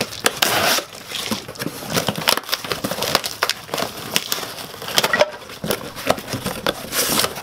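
Small cardboard box being opened by hand, its flaps pulled apart, with irregular crackling and crinkling of cardboard and plastic wrapping.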